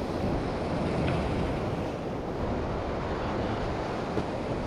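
Ocean surf breaking and washing over rocks, with wind buffeting the microphone.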